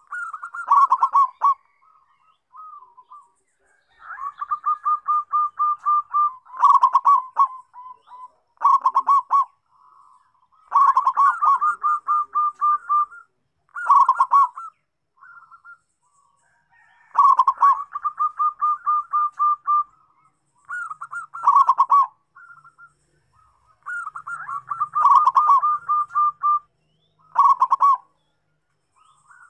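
Zebra dove (perkutut) singing: phrase after phrase of rapid staccato cooing notes, each run ending in a few louder, slightly lower coos, with short pauses between phrases.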